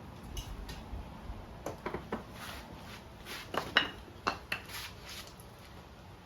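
Scattered light metallic clinks and knocks, with a few sharper knocks a little past the middle; metal parts of an old motorcycle knocking against each other as it is handled.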